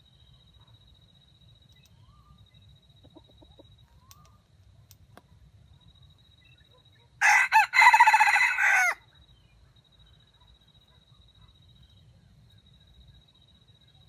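Red junglefowl rooster crowing once, about seven seconds in: a short crow of under two seconds, broken into a few choppy, stuttering pieces.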